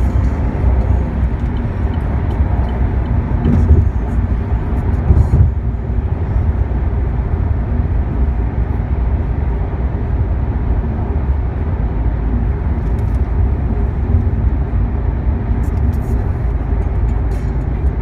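Steady in-cabin drone of a 2015 Chevrolet SS cruising at highway speed: road, tyre and engine noise heavy in the low end. There are a couple of louder bumps about four and five seconds in.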